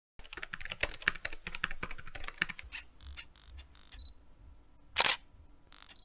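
Typing sound effect: a fast run of keystroke clicks for about two and a half seconds, then a few scattered clicks. A louder camera-shutter click comes about five seconds in, and another near the end.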